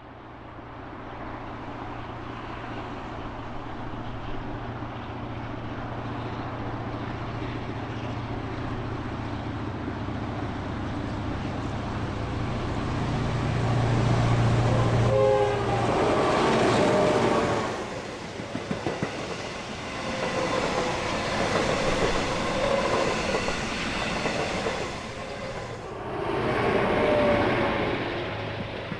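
Two T-class diesel-electric locomotives approaching with a steady low engine drone that grows louder, the pitch dropping as they pass about halfway through. Afterwards the towed train clatters along the rails as the cars roll past.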